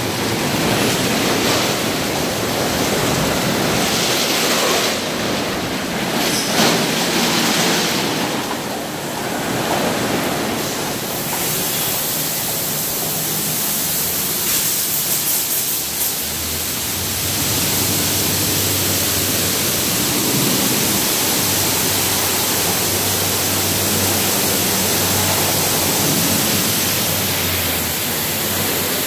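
Water spraying and spinning cloth brushes in a MacNeil tunnel car wash, a loud steady rush of water. About a third of the way in, a brighter hiss of spray takes over. About halfway through, a low steady hum from the wash machinery joins in and stops shortly before the end.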